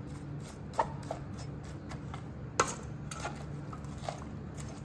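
Metal spoon clinking now and then against a stainless steel mixing bowl while sliced palm heart and onion are stirred together: a few irregular light clicks, the sharpest about two and a half seconds in, over a faint steady hum.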